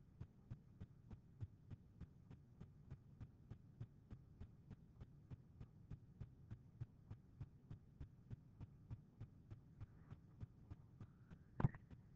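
Near silence with a faint, even ticking about three times a second over a low hum, and a single sharp mouse click near the end.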